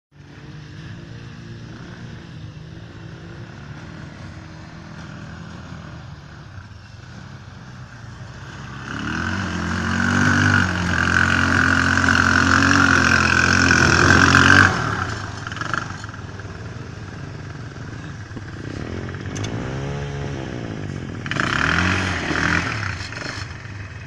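IRBIS 200 quad bike's engine running as it is ridden through forest mud. It is moderate at first and grows much louder about a third of the way in as the quad comes close, then drops suddenly. Later the engine revs up and down and swells again near the end.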